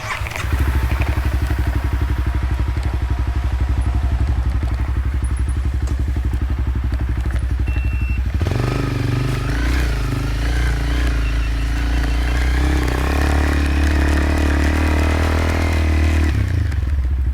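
Motorcycle engine running steadily, louder from about half a second in; its note changes about halfway through and it settles back down near the end.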